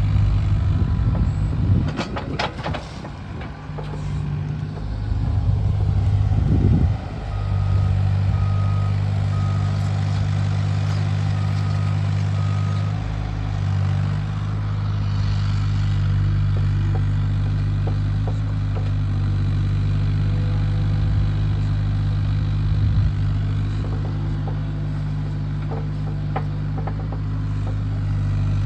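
Hyundai HX35Az mini-excavator's diesel engine running steadily under hydraulic work, with a few sharp clanks early on. A row of five short high beeps sounds between about 8 and 13 seconds in, and a few more knocks come near the end.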